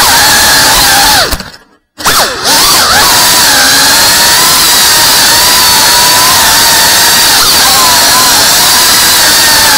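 FPV quadcopter's motors and propellers whining loudly, the pitch wavering up and down with throttle. About a second and a half in the sound drops away to almost nothing for about half a second, then comes straight back with quick rising sweeps as the motors spool up again.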